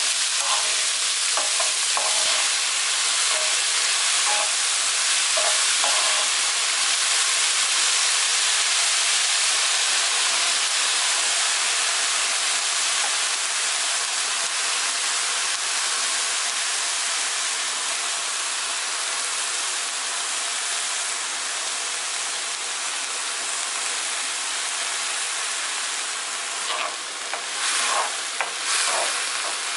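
Chopped green chillies and onion frying in perilla oil in a pan, a steady sizzling hiss, stirred with a wooden spoon. A few scrapes of the spoon stand out near the end.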